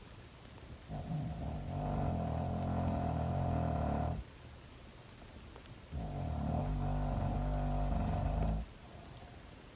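A sleeping girl snoring: two long snores of about three seconds each, less than two seconds apart, with quieter breathing between them.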